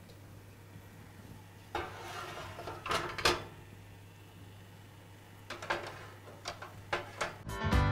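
A metal muffin tray and oven rack clatter and clink as a tray of cheesecake cups is handled into a wall oven: a few knocks, loudest about three seconds in, then a run of lighter clicks. A low steady hum lies underneath, and music starts at the very end.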